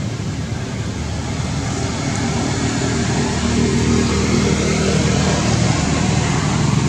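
A motor vehicle engine running steadily, its rumble growing gradually louder over the first few seconds.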